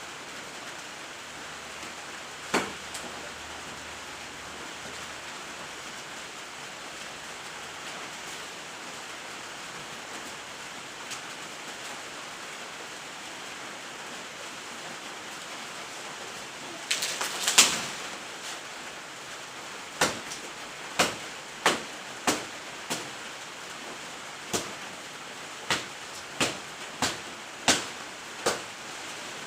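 A steady even hiss, with a lone sharp strike early on. About two thirds of the way in a quick cluster of strikes is followed by a run of about ten sharp chopping strikes on wood, roughly one a second, as the fallen breadfruit tree is cut up.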